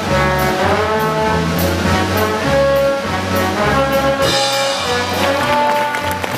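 Brass-led band music over a stepping bass line with a steady beat, played as accompaniment to a circus act.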